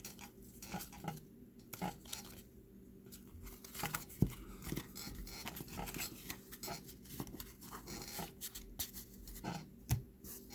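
Topps trading cards being handled and flipped through: irregular soft clicks and rustles of card stock, with a few sharper snaps about four seconds in and near the end.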